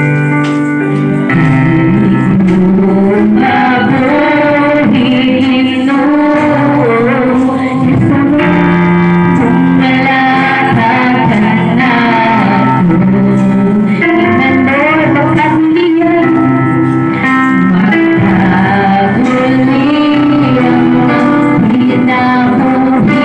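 Women singing a praise and worship song into microphones over amplified instrumental accompaniment, a continuous congregational-style worship song.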